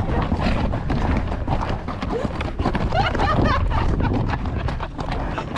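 Horses' hooves clopping on a steep trail climb, a steady run of short clicks and knocks.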